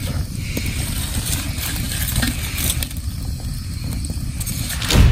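Wood fire burning in a steel fire pit, with scattered crackles and knocks as a machete blade pokes and splits the burning logs, over a steady low rumble. Near the end comes a single loud, deep boom.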